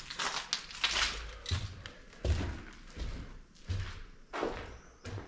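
Footsteps over a debris-covered floor: crunching and scraping on rubble with a low thud at each of about five steps.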